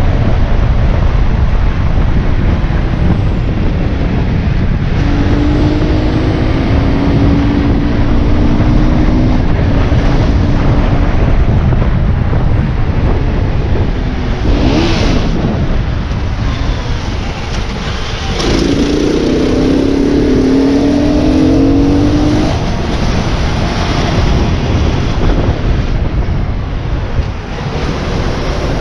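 Enduro motorbike engine running on the road under heavy wind rush on the microphone; its note climbs twice as the bike accelerates.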